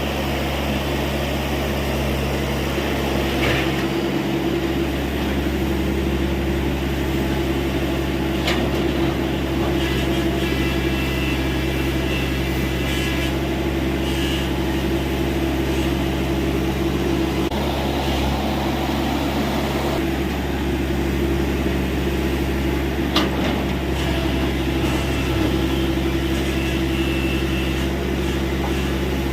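TATA Hitachi EX70 excavator's diesel engine running steadily while it digs, with a couple of sharp knocks and a faint high whine that comes and goes.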